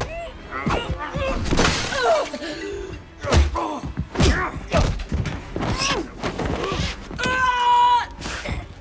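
Movie fight sound effects: a rapid run of punches, thuds and body impacts with grunts and strained cries of effort, and a crash about one and a half seconds in. Near the end comes a long held high-pitched cry.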